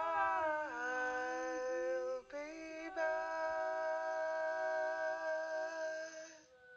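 Unaccompanied woman's voice singing an English folk song in long, slow held notes, layered in two-part harmony. The pitch steps down about a second in, changes again just after two seconds, and the voices fade out near the end.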